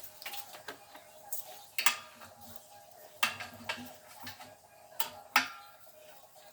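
Metal tools and parts clinking and knocking while an air compressor pump is being worked on: a few scattered sharp clanks with short ringing, the loudest about two, three and five seconds in.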